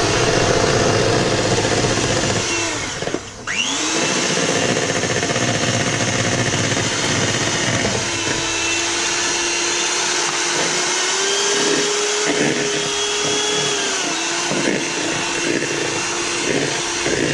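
Electric hand mixer running steadily, its beaters creaming butter and sugar in a plastic bowl. About three seconds in it slows and dips briefly, then spins back up to speed.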